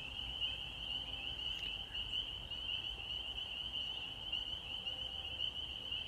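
Chorus of frogs calling at dusk: a dense, steady high-pitched trill that never breaks, with a faint low rumble underneath.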